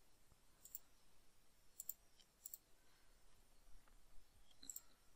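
A few faint, sharp computer mouse clicks spread over near silence, one pair in quick succession, as curves are picked one by one on screen.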